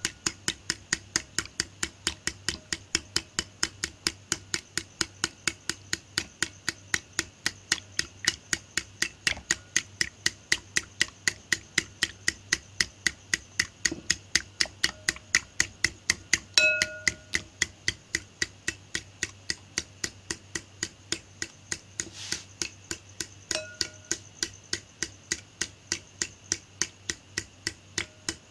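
Two eggs being beaten by hand in a bowl: a utensil clicks against the bowl in an even rhythm of about three strokes a second, and a few strokes make the bowl ring briefly.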